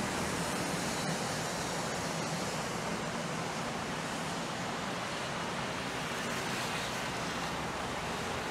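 Steady outdoor background noise, an even hiss with a low rumble underneath, with no distinct sounds standing out.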